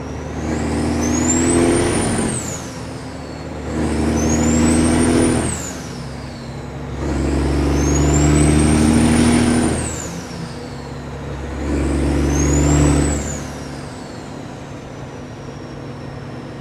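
Kenworth W900's diesel engine through loud stacks, pulling away under load and shifting up through the gears. There are four pulls of a few seconds each, split by short dips at the gear changes, and in each pull a high turbo whistle rises and then falls.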